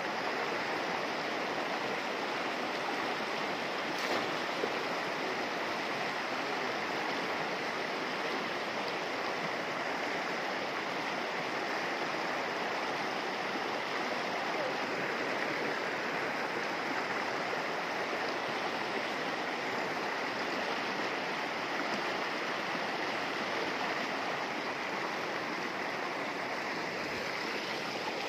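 Shallow mountain river flowing over stones and small riffles: a steady wash of running water.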